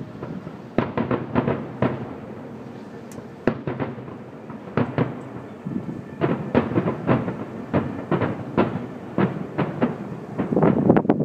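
Aerial fireworks shells bursting in quick clusters of bangs, with a lull about a third of the way through and a dense volley near the end.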